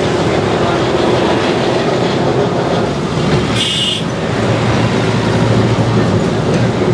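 Electric tram running along street track, heard from inside the car: the steady rumble and rattle of the tramcar on its rails, with a short high-pitched tone about halfway through.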